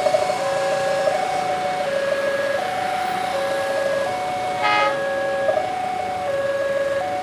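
Railway level-crossing warning alarm ringing, an electronic signal that takes turns between a lower and a higher tone about every 0.7 seconds, warning that a train is approaching. About two-thirds of the way through a short horn toot sounds over it.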